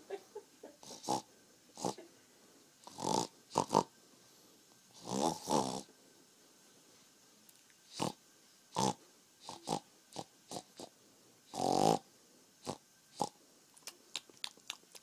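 Two-week-old baby girl snoring in deep sleep: irregular snorting breaths, a few long ones with a rattling buzz, and short snuffles and clicks between them.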